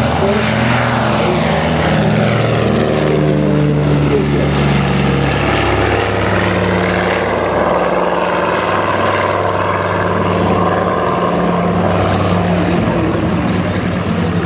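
Twin Pratt & Whitney R-1830 radial engines of a Canadian Vickers PBY-5A Catalina at takeoff power as the flying boat lifts off and climbs away. The engine note falls in pitch over the first few seconds as it passes, then holds steady and loud.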